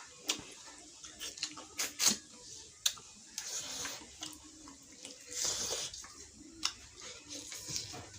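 Close-up eating sounds from a person eating spicy fish head: wet slurping and sucking twice, each for under a second, among sharp clicks and smacks of chewing.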